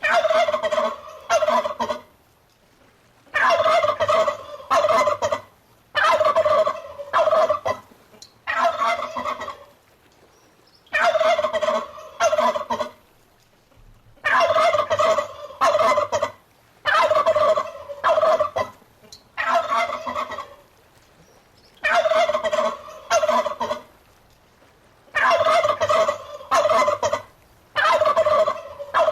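Domestic turkey gobbling again and again: about eleven rapid, warbling gobbles, each a second or so long, with short quiet gaps between them.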